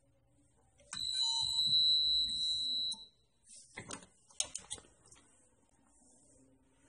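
Hand impulse heat sealer: a click as the sealing arm is pressed down, then a steady high beep for about two seconds while the sealing wire heats the plastic bag. Several sharp clicks and knocks follow as the arm is let up and the sealed bag is handled.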